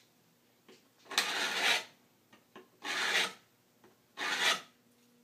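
A toothing iron, a serrated plane blade worked by hand, scraped along the edge of a board held in a vise, three strokes about a second and a half apart, with light clicks between them as the blade is set back. It is cleaning up the board's edge before regluing.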